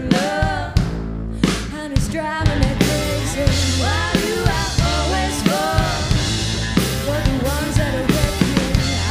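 Live rock band playing: distorted electric guitars, bass guitar and drum kit, with a woman singing the melody over them.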